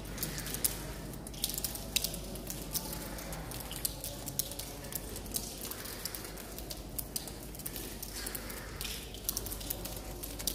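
Rainwater dripping from a leaking ceiling onto the stairs and into buckets, as many irregular drips and splats.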